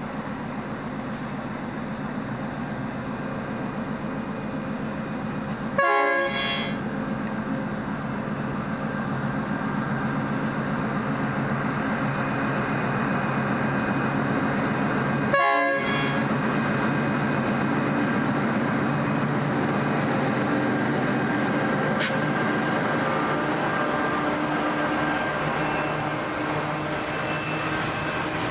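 Pacific National NR class diesel-electric locomotives hauling a container train. The engines run with a steady drone that slowly grows louder. Two short horn blasts sound, about six seconds in and again nearly ten seconds later.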